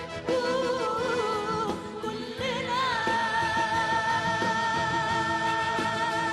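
Female opera singer singing an Arabic song in a classically trained voice with orchestral accompaniment, holding one long high note with vibrato from about three seconds in.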